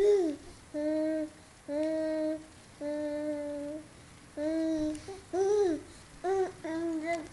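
Baby vocalising in a run of about nine held, level-pitched notes with short gaps between them, the last few shorter and quicker.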